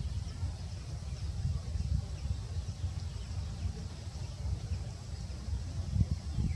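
Outdoor ambience: a low, uneven rumble of wind on the microphone, with faint high chirping in the background.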